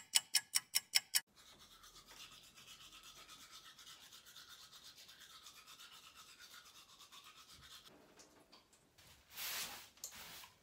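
A quick run of about eight sharp clicks at the start, then a toothbrush scrubbing teeth in steady, quick back-and-forth strokes. Two louder bursts of rustling noise near the end.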